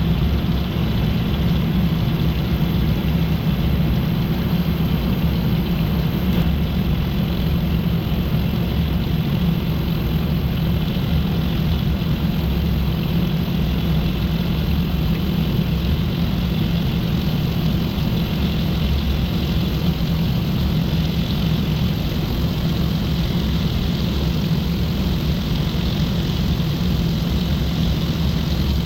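A machine running steadily: a loud, even mechanical drone with a low hum that does not change.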